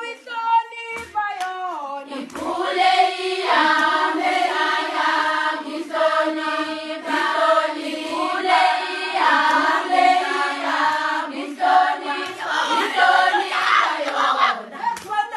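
A group of young women singing a Zulu song together in chorus, with hand claps keeping the beat. The full group singing starts about two seconds in, after a few short vocal phrases.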